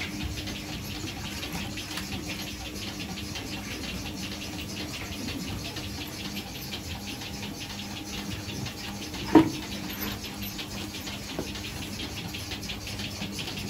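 A machine running steadily, with a low hum and fast, even ticking, and one sharp knock a little past the middle.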